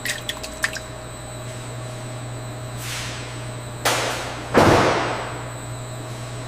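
Steady low machine hum with a few light clicks near the start, then two rushing hisses, the second and louder one about four and a half seconds in, fading over about a second.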